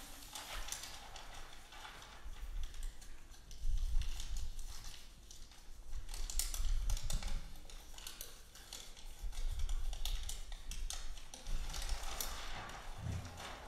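Large sheets of paper being rubbed, slid and handled by performers, amplified through microphones. The sound comes in irregular swells of dense rustling and clicking, with a low rumble under the louder ones.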